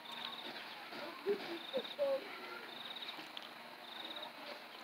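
Faint animal calls: a short, high-pitched trill repeated four times, a little over a second apart, with a few brief lower calls about a third of the way in.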